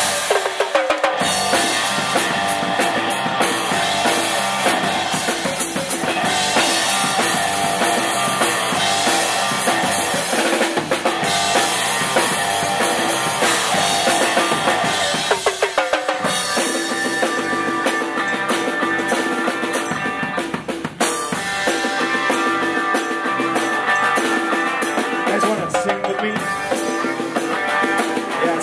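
Live rock band playing, with the drum kit's bass drum and snare prominent.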